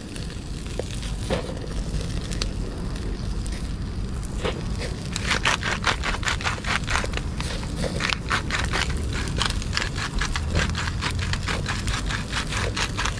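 Chicken yakitori skewers grilling over a charcoal shichirin: the coals flare and crackle as fat drips onto them, with a steady low rumble of the fire. Scattered pops turn into rapid, dense crackling about five seconds in.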